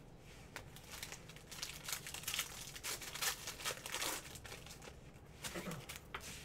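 Foil trading-card pack wrapper crinkling and tearing as it is ripped open: a dense run of crackling from about a second in to about four seconds, then a shorter rustle near the end as the cards come out.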